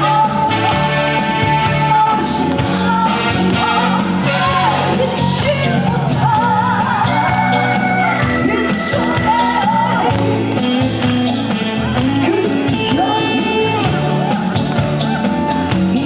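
Live Korean trot performance: a woman sings with wavering, held notes over amplified backing music that has a steady bass line.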